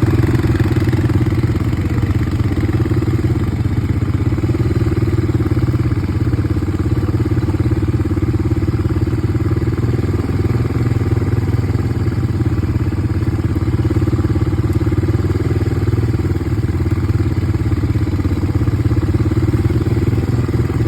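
ATV engine running at a steady pace, its note holding even with no rises or drops in revs.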